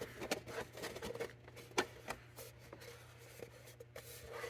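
Faint clicks and light scraping of a cut-off plastic quart oil bottle being screwed by hand onto an engine's oil filler neck, plastic threads turning, with one sharper click about two seconds in.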